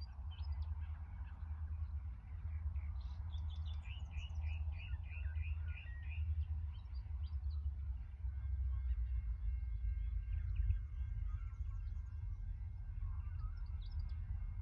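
Birds calling, with a quick run of about eight repeated chirps a few seconds in and scattered chirps after, over a steady low rumble; a faint steady whine of several high tones comes in about halfway.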